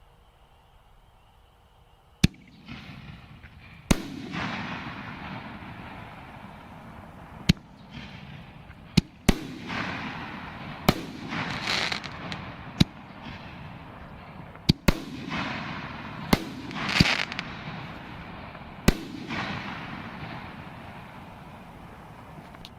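Black Cat Neon Diablo 5-inch canister shells firing from fibreglass mortar tubes. About two seconds in, a series of about a dozen sharp bangs begins: launches and loud shell bursts, spread unevenly with some close together. After the bursts, the crackling and sizzling of the glitter and crackle effects lingers.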